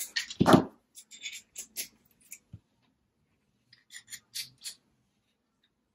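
A nut driver and a small nitro RC engine being handled on a workbench. There is a clatter with a low knock about half a second in, then light scattered metal clicks as the driver is set on the crankshaft nut to turn the crankshaft.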